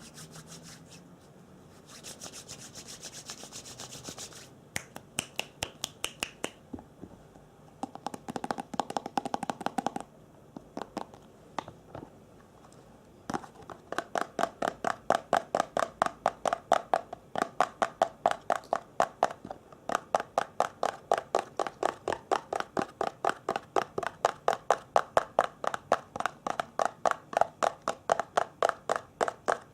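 ASMR triggers made by hand on objects: a stretch of scratching, then a long run of quick, even taps at several a second, each tap ringing with a short hollow tone.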